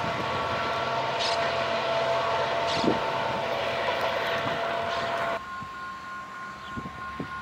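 Diesel-hauled passenger train running away along the track, its engine and wheels on the rails making a steady noise. About five seconds in this stops abruptly, giving way to a quieter, more distant diesel train.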